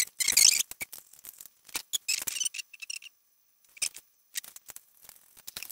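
Small clicks, scrapes and rattles of a screwdriver and loose screws and parts against a metal droid dome as its holoprojectors and panels are unscrewed and taken out, with a short quiet pause a little past halfway.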